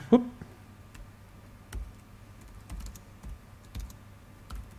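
Computer keyboard being typed on: a short command entered in scattered, irregular keystrokes, each a light click, some with a dull knock.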